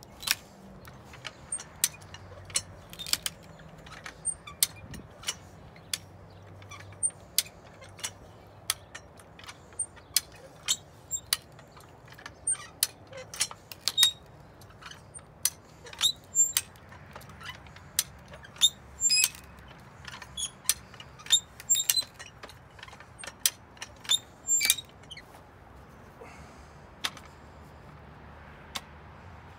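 Hi-Lift farm jack being pumped by its handle, its climbing pins clacking in sharp clicks about one or two a second as the jack forces a log onto a splitting wedge. The clicks stop a few seconds before the end.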